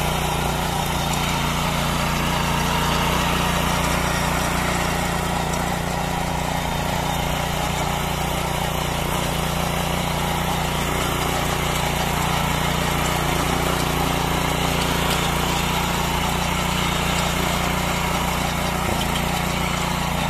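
A 7 hp centre-rotary power weeder's engine runs steadily under load as its rotary tines till the soil.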